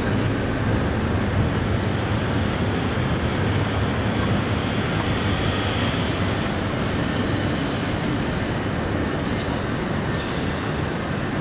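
Stationary Italo high-speed train's cooling fans and onboard equipment running, a steady whirring rush with a low hum underneath.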